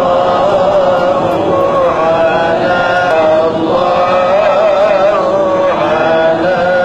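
A voice chanting in long, drawn-out melodic phrases that waver slowly in pitch, with only brief breaks between them.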